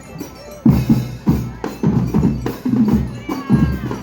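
School marching band's drum section playing a steady beat, with deep drum strokes about every half second.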